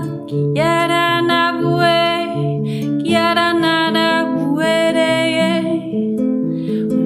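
Ngoni harp tuned to 432 Hz, plucked in a repeating pattern of notes, under a voice singing long wordless tones that slide up into each note, three held notes in turn.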